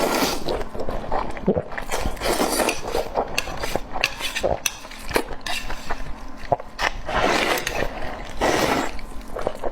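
Close-miked eating sounds: wet chewing and slurping, with cutlery clinking and scraping against dishes.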